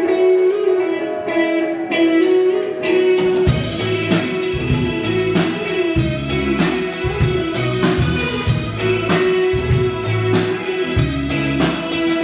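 A rock band playing an instrumental intro: an electric guitar holding a ringing line alone, then drums and bass coming in together about three and a half seconds in with a steady beat.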